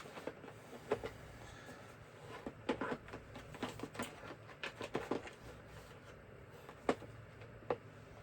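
Irregular small clicks and taps of screwdrivers being handled and pushed into their slots in the screwdriver set's storage case, with one sharper knock about seven seconds in.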